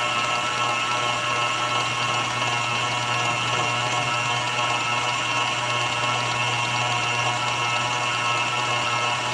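Commercial planetary stand mixer running steadily, its whisk beating egg whites into meringue: a constant motor hum with a steady whine above it.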